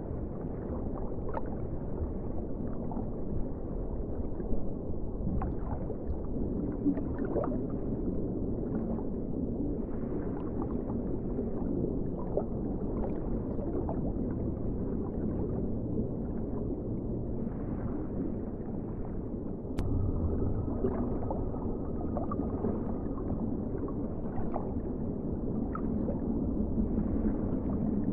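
Underwater ocean ambience: a steady, muffled low rumble of water with scattered small bubble pops and gurgles. About two-thirds of the way through there is a sharp click, after which the rumble is a little louder and a faint, high, held tone sounds for a few seconds.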